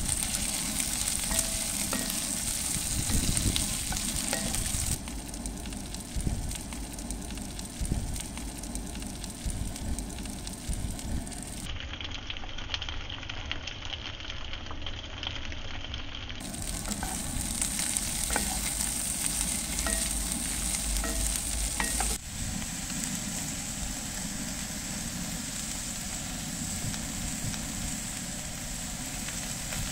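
Mixed vegetables sizzling as they sauté in a cast-iron pot, with a wooden spoon stirring and scraping through them in small clicks. The sizzle shifts abruptly a few times.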